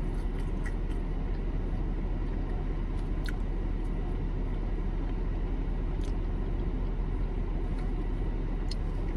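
Steady low rumble of a car idling, heard from inside the cabin, with a few faint clicks and taps.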